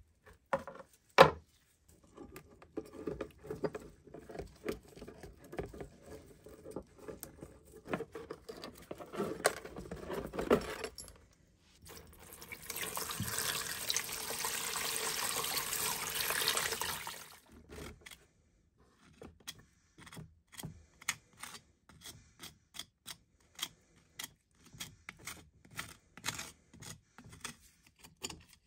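Scratching and knocking as a rusty axe head is handled in a plastic tub. Then water pours steadily into the tub for about five seconds. After a short pause, a metal pick scrapes rust off the submerged axe head in quick, repeated strokes.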